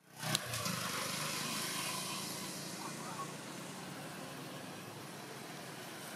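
A motor vehicle running in the background: a steady engine noise with a low hum that slowly fades. A single sharp click comes just after the start.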